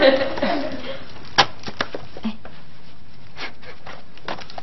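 A scattering of light, irregular clicks and taps from a woven bamboo hand fan being flapped at someone's hair, the first and loudest about a second and a half in.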